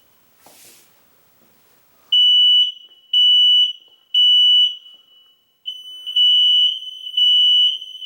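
Hardwired smoke alarm sounding its test: loud, shrill beeps in the three-beep fire pattern. Three beeps come about a second apart, then a pause, then three more, with a quieter tone running between the beeps of the second set. The newly installed alarm is set off by its test button and is working after being reset.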